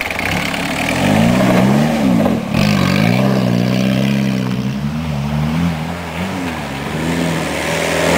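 Peugeot 306 1.9 turbo diesel engine revving under load, its note rising and falling several times, with a brief drop in revs about two and a half seconds in.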